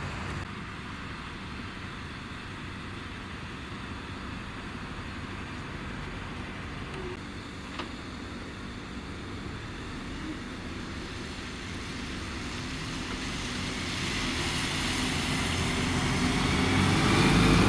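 City bus engines running on the street; a Volgabus city bus approaches and grows steadily louder over the last few seconds.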